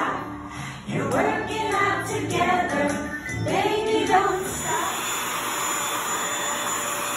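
Singing with jingling bells, then from about five seconds in a corded stick vacuum cleaner running, a steady rushing noise with a thin high whine.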